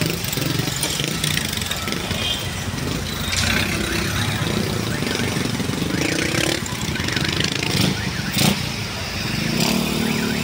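Street traffic, mostly motorcycle and other vehicle engines passing and speeding up, with a couple of sharp knocks near the end.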